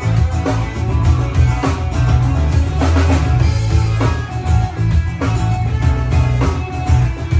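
Background rock music with drums and guitar, playing at a steady beat.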